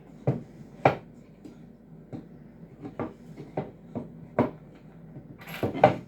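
Irregular knocks and clatter of a cross-stitch embroidery stand's parts being handled and fitted together, about ten separate knocks with the loudest pair near the end.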